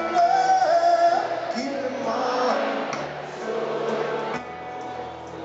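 Live acoustic band music: upright double bass and piano with singing, opening on a long held, slightly wavering sung note.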